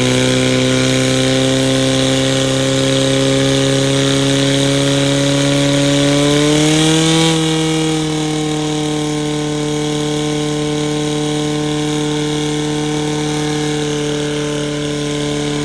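Portable fire pump's engine running flat out, a steady, loud, high-pitched drone, driving water through the attack hoses. Its pitch climbs slightly about six seconds in, then settles a little lower.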